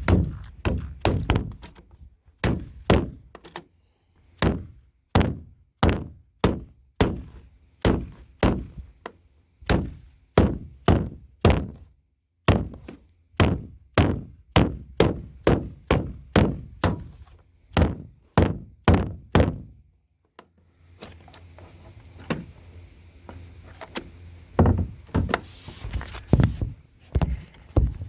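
A steady series of heavy thunks, about one and a half a second for some twenty seconds, then a short pause and a few more strikes near the end. This is trim being pounded onto a minivan's roof rack to snap its plastic clips into place.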